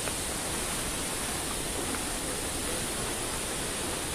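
Waterfall water falling and rushing in a steady, even wash of noise.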